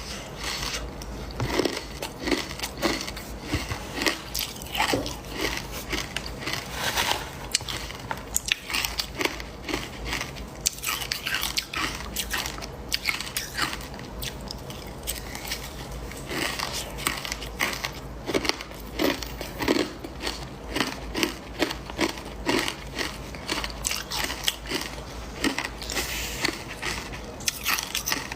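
Ice dusted with matcha powder being bitten and chewed: a continuous run of crisp crunches, several a second.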